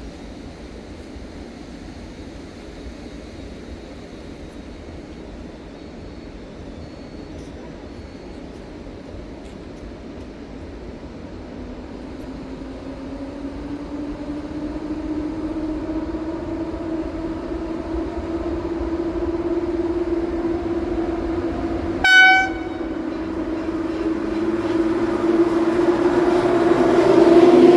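EP08 electric locomotive hauling a passenger train, running past with a hum that rises in pitch, then holds steady as the train gets steadily louder. About 22 seconds in, a short horn blast.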